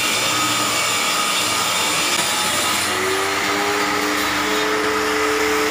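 Electric angle grinder with a sanding disc running and grinding against a painted wooden table rail: a steady, loud motor whine with scraping. About three seconds in, a steadier humming tone joins in.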